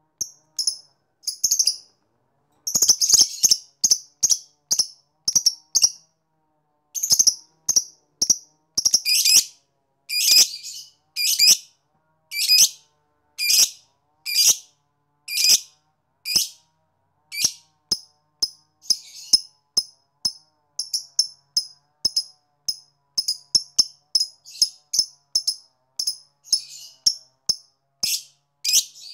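Fischer's lovebird giving a run of short, shrill chirps, one to two a second at first and quickening to two or three a second in the second half.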